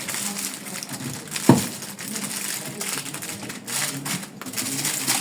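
Aluminium foil crinkling and rustling as it is folded into a parcel, with one sharp knock about a second and a half in.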